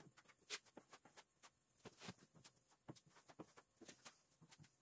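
Near silence with faint, irregular small clicks and scrapes, several a second.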